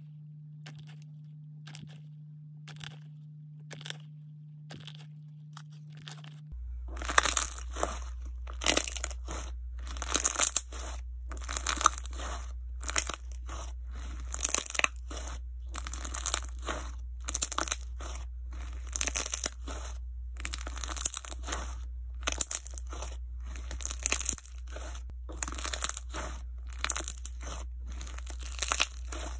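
Jelly slime with chunks of melamine-sponge 'peach flesh' being squeezed and pressed by hand, giving wet, crackly crunching in irregular bursts as the sponge pieces are crushed. The first several seconds are faint, with a few soft clicks; from about six seconds in the crunching is much louder and comes one to two times a second, over a steady low hum.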